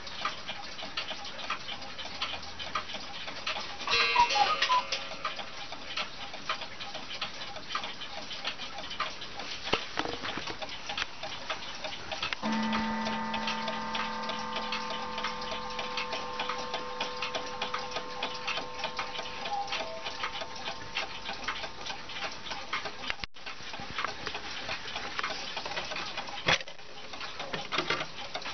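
Juba mantel clock ticking steadily. A single note of its strike rings out about twelve seconds in and fades slowly, after a brief louder burst of ringing tones about four seconds in; a knock comes near the end.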